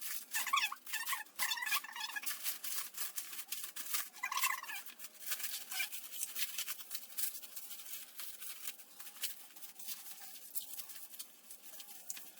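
Products and packaging being handled: light rustling, clicks and small knocks, with two short higher-pitched squeaks, one near the start and one about four seconds in.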